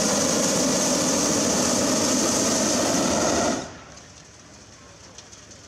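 Hot-air balloon propane burner firing with a loud, steady roar, shut off abruptly about three and a half seconds in; a few faint ticks follow.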